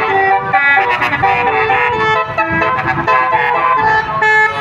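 Telolet basuri bus horn playing a tune: a quick run of loud horn notes, each held briefly before jumping to the next pitch.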